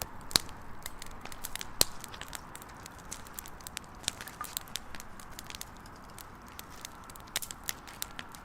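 Firewood burning in a campfire, crackling with irregular sharp pops over a soft steady hiss. The loudest pops come in the first two seconds, with smaller ones scattered after.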